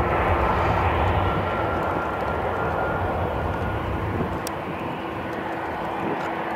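Turbofan engines of a twin rear-engined regional jet at takeoff power during its takeoff roll: steady rushing jet noise with a faint steady whine, easing slightly after about four seconds.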